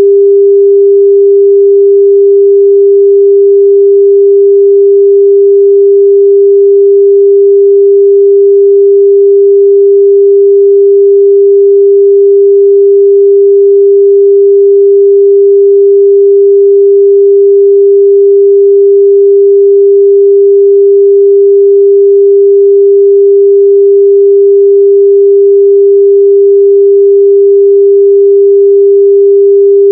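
A single loud, steady pure tone, pitched a little under 500 Hz, holding without any change. It is a generated sine-wave test tone, meant to be played through lost AirPods or Bluetooth earbuds so they can be found by ear.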